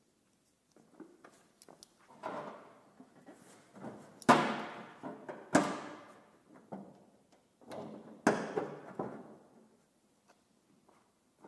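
Hand-formed aluminium body panel being knocked and flexed under a gloved hand: scattered light knocks and three sharp strikes, each followed by a brief metallic ring.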